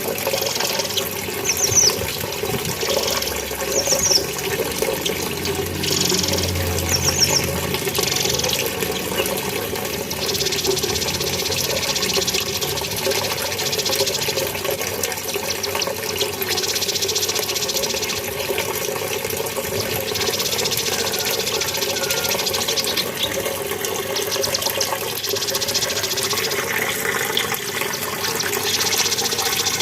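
Cucak kinoi singing in repeated bouts of rapid high chirps, each bout lasting one to three seconds, with a few short swooping calls in the first several seconds. Under it runs a steady sound of flowing water.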